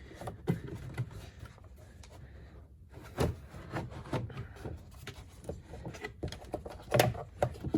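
Scattered plastic clicks and knocks as the 2018 Dodge Durango's engine-bay air box and its retaining clips are pulled and worked loose by hand, with two louder knocks about three seconds in and near the end.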